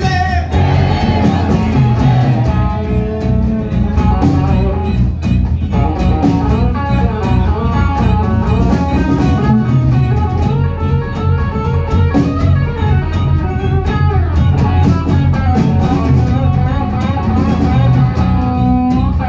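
Live blues-rock band playing loud: a semi-hollow electric guitar leads with bending notes over bass guitar and drum kit.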